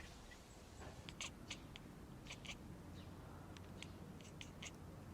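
Cat chattering at prey: faint, quick high-pitched clicks in small clusters, about a dozen over a few seconds.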